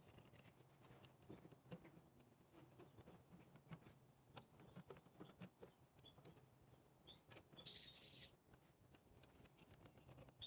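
Near silence: faint scattered clicks and taps, with a brief high-pitched hiss about three quarters of the way through.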